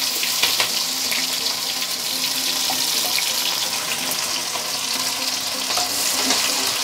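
Chopped onion and green chillies sizzling steadily in hot oil with cumin seeds in a kadhai, with scattered small crackles.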